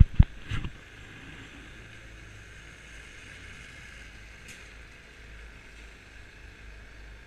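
Kymco Agility 50cc scooter idling while stopped in traffic, a steady low running noise. A few sharp knocks in the first second are the loudest sounds.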